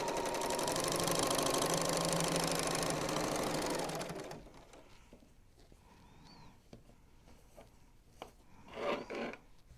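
Serger (overlocker) running steadily at speed as it stitches a seam through the quilt block, stopping about four seconds in. After that there are only faint handling clicks and one brief soft sound near the end.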